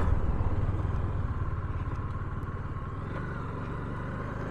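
Motorcycle engine running on the move: a low, steady, fast-pulsing drone with road noise, easing off slightly over the first couple of seconds.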